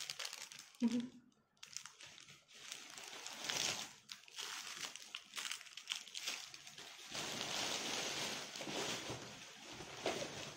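Clear plastic wrapping on a pack of Christmas bows crinkling as it is handled. From about seven seconds in, a plastic carrier bag rustles steadily as a hand rummages in it.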